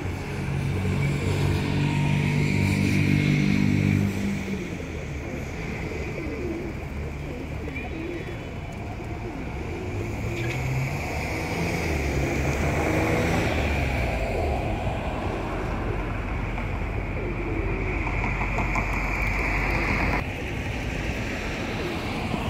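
A flock of feral pigeons cooing while they feed, over road traffic noise. A vehicle's low engine hum is loudest in the first four seconds, and a steady background hum cuts off suddenly about twenty seconds in.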